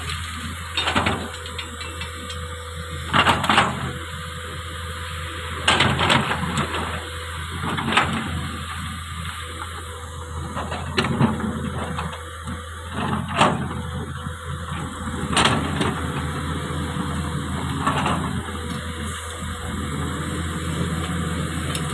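Komatsu excavator's diesel engine running steadily under work, with sharp knocks every two to three seconds, about eight in all.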